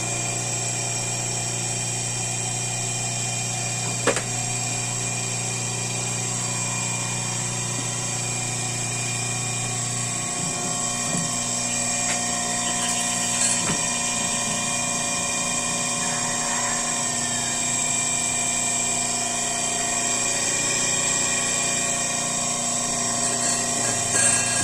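Repaired Hyundai Starex alternator spun up on a test bench, a steady machine whine made of several constant tones. A low hum under it drops out about ten seconds in.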